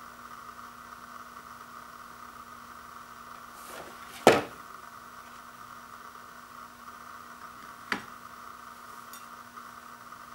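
Handling noise as toaster pastries are turned over in the hands: one loud sharp knock about four seconds in and a smaller click near eight seconds, over a steady background hiss and hum.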